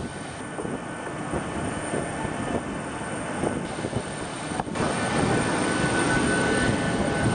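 Steady aircraft noise on an airport apron: a dense rumble with a thin high whine. About two-thirds of the way through it changes abruptly, becoming louder with a steady whistle added.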